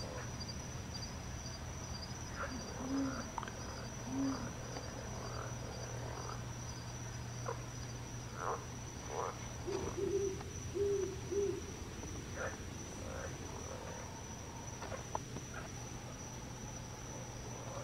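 Night ambience: insects trilling steadily on one high note, with short low calls from a nocturnal animal, two a few seconds in and a quick group of four around the middle. Faint scattered clicks.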